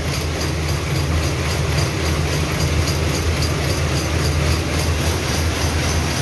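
Power looms running in a weaving shed: a loud, steady mechanical clatter over a deep hum, with the loom whose inverter fault has just been fixed running normally.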